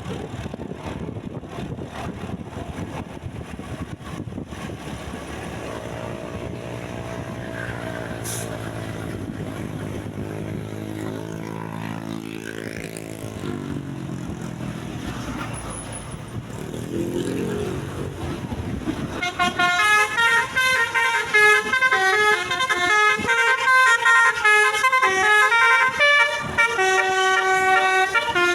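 A large bus's engine pulls through a bend, its pitch rising and then falling, followed by a shorter rise. About two-thirds of the way in, a multi-tone telolet horn starts, loud, playing a fast melody of shifting notes.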